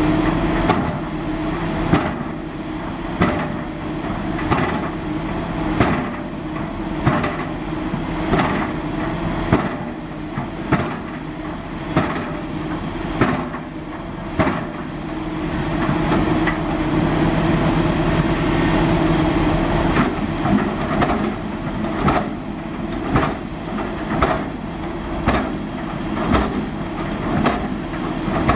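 Kobelco SK350 hydraulic excavator running under load, its diesel engine droning steadily while sharp metallic knocks repeat at an even pace, a little under one a second.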